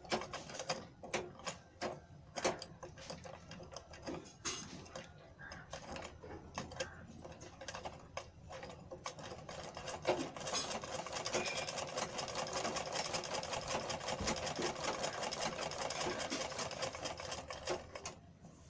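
Domestic sewing machine stitching a seam through cotton cloth. For the first half it clicks in short, stop-start bursts. About ten seconds in it runs steadily with fast, even ticking, then stops near the end.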